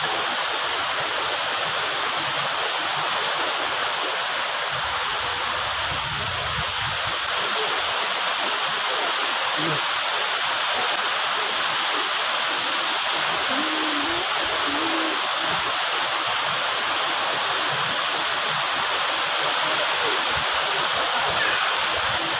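Waterfall pouring: a steady, loud rush of falling water that does not let up.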